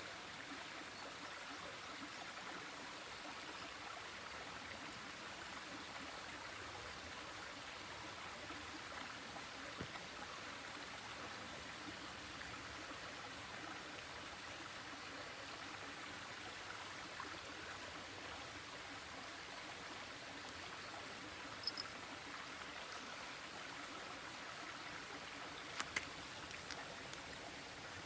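Steady rushing background noise, like running water, with a few short faint clicks: one about a third of the way in, and pairs about two-thirds of the way in and near the end.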